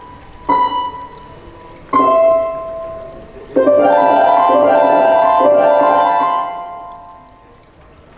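Harp notes plucked one at a time, then a rolled chord about three and a half seconds in that rings on and fades away.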